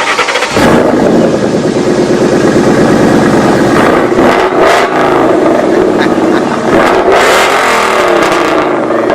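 Car engine running loudly and revving, its pitch rising and falling twice.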